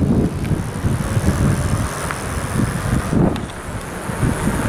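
Wind buffeting the microphone: an irregular, fluttering low rumble over a steady hiss.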